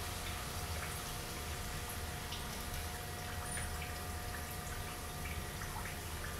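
Stir-fried vegetables and chicken sizzling softly in a wok after soy sauce was poured on, with scattered faint crackles over a steady low hum.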